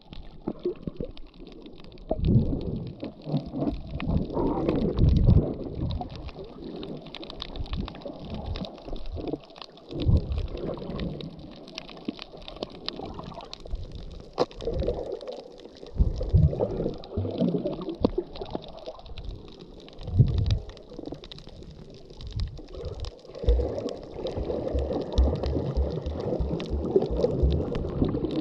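Muffled underwater water noise: irregular low rumbling and sloshing that swells and fades every few seconds, with scattered sharp clicks.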